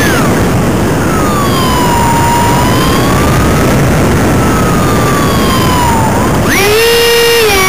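Ducted fan of a cardboard model plane, heard close up from its on-board camera over a steady rush of air. Its whine drops sharply in pitch as the fan slows, wavers low for several seconds, then climbs sharply back up as the fan speeds up near the end.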